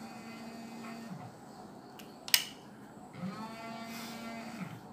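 A cow mooing twice, each call held on one pitch for about a second and a half. A sharp click falls between the two calls.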